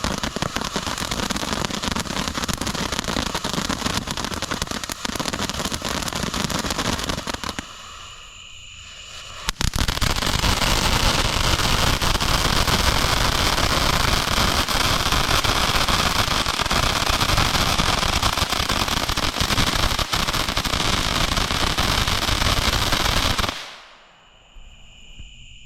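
Spin Monkeys firework fountain spraying with dense hissing and crackling. It eases off for about two seconds a third of the way in, comes back louder, and then cuts out suddenly near the end, leaving crickets chirping.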